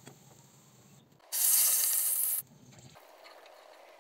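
Hot cooking oil in a small metal pan sizzling loudly for about a second as food goes into it, starting and stopping abruptly; before and after it, only faint frying noise.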